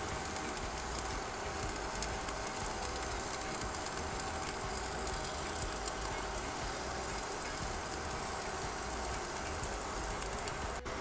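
Jerk pork on a charcoal grill sizzling steadily, a constant hiss over a low rumble.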